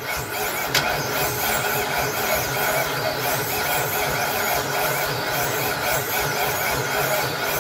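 Ford 460 big-block V8 in a single-engine modified tractor running steadily after being brought back to life from two years of sitting. A high wavering tone rides over the engine note, with a single click about a second in.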